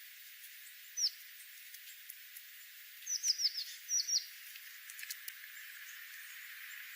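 Small bird chirping: a single high note sliding downward about a second in, then a quick run of four falling notes around three seconds and a pair just after four, over a steady background hiss.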